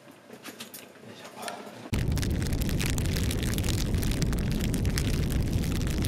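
Faint kitchen clatter, then about two seconds in a loud sound effect of a burning fire sets in abruptly: a dense, deep rushing noise full of crackles.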